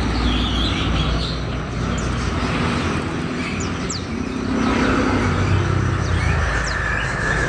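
Small birds giving a few short, high chirps over steady traffic rumble.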